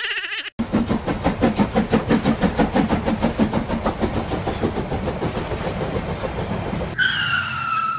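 Cartoon train sound effect: a fast, even chugging rhythm for about six seconds, then a held, slightly falling train whistle near the end.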